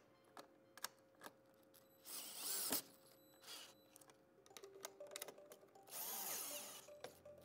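Compact cordless drill-driver running screws into a steel bracket in two short bursts, one about two seconds in and one near the end, with small clicks of the tool and fasteners between them.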